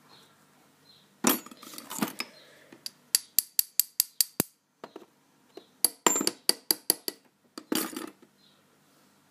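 Small metal clinks and clatter from an American 1105 padlock being gutted, with two quick rows of sharp taps, about four a second, as a serrated driver pin is worked out of its chamber.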